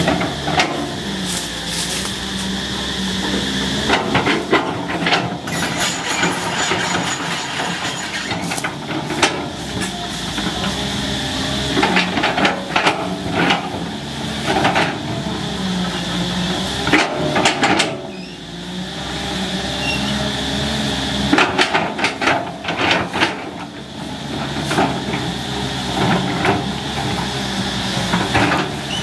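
Tracked excavator's diesel engine running steadily under load while its bucket pushes through trees, with repeated sharp cracks and snaps of breaking branches and wood.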